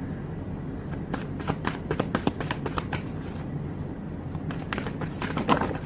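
Tarot cards being shuffled and handled by hand: two quick runs of light card clicks, one about a second in and another near the end.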